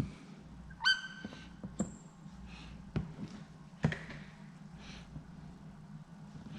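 Quiet hand-work sounds while fitting paint protection film on a car bumper: a short rising squeak about a second in, then a few light clicks and soft swishes.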